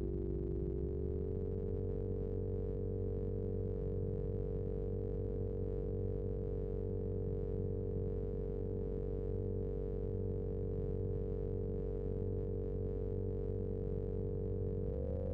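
Steady electronic synthesizer drone: a chord of pure, sine-like tones held over a low hum. The pitch sags slightly at the start and rises again near the end.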